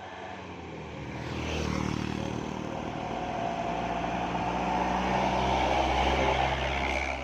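A bus engine running and drawing closer. It grows steadily louder for several seconds, then eases off near the end.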